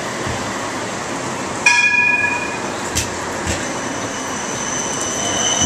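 A GVB Siemens Combino tram rolls past close by on street rails, with steady rolling noise. About two seconds in, its bell rings once loudly and fades over about a second. A sharp knock follows a second later, and near the end a thin high wheel squeal rises.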